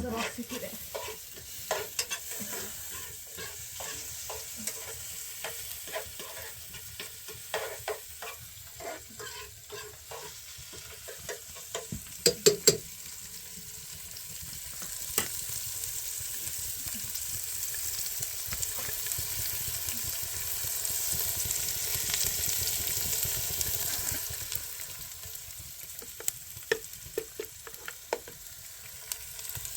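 Food sizzling in a pan while being stirred, with sharp clicks of a utensil against the pan; a quick cluster of louder clinks about twelve seconds in, and the sizzle swells louder in the middle stretch.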